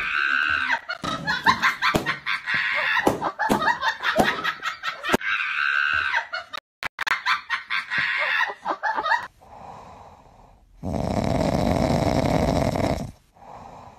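Laughter in rapid repeated bursts for about nine seconds. After a brief lull comes a steady rush of noise lasting about two seconds.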